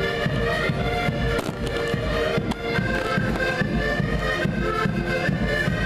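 Accordion ensemble playing a tune together, sustained reedy chords over a regular bass pulse, with two sharp cracks cutting through about one and a half and two and a half seconds in.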